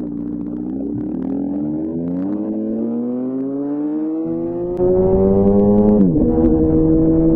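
2004 Honda CBR1000RR inline-four through a Jardine titanium exhaust, pulling hard under acceleration with its pitch rising for about six seconds. The pitch drops sharply at an upshift, then the engine runs steadily at higher revs. A rush of wind noise comes in about halfway through.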